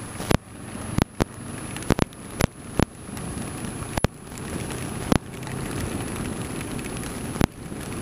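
Motorcycle riding through heavy rain: a steady rush of wind, rain and wet-road noise at the camera, broken by irregular sharp taps about once a second as raindrops strike the camera.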